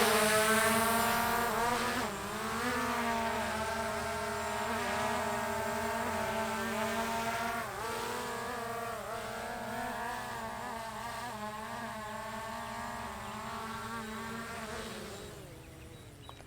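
DJI Mavic Air 2 drone with stock propellers flying close by, its propellers giving a buzz of several pitches that sounds like a lot of bees and wavers as the motors adjust. It is loudest at the start, dips briefly in pitch about two seconds in and again near the middle, and fades out near the end.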